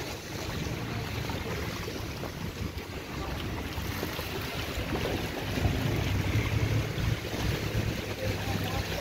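Wind rushing over a phone microphone outdoors, with a low hum that swells about five seconds in and eases off again.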